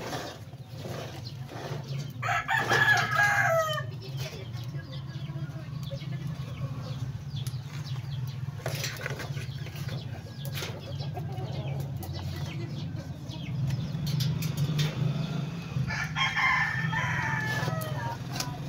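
A rooster crowing twice, once a couple of seconds in and again near the end, over a steady low hum.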